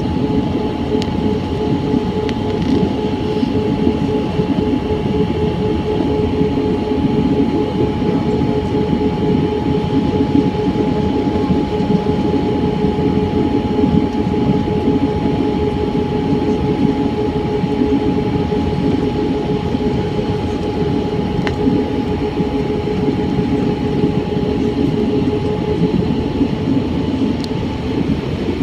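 Airbus A320 cabin noise from a window seat over the wing, on the descent: a steady rush of airflow and engine noise with two steady hums, one low and one higher.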